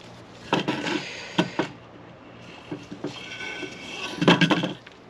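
Clattering and knocking of small parts and tools being handled on a workbench, in two bursts, the louder one near the end, with a brief thin squeak in between.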